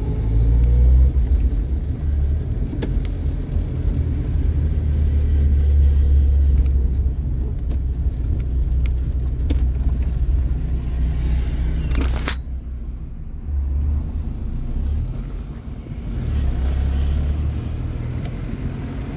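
Low rumble of a car moving slowly along a street, heard from inside the car: engine and tyre noise. A brief sharp noise cuts through about twelve seconds in.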